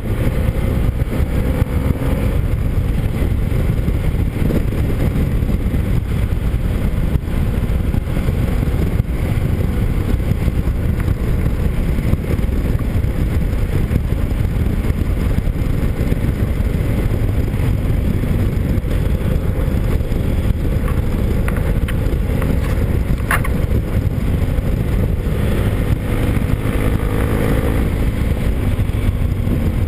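Motorcycle riding along at speed, heard from the rider's helmet camera: a steady low rumble of engine and wind, with the engine's pitched note coming through near the start and again late on.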